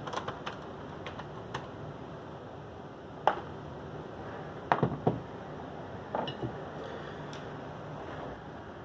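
Scattered light clicks and taps from handling an HO-scale model locomotive and a thin piece of bent tin on the track. One sharper click comes about three seconds in, and a quick cluster follows about five seconds in.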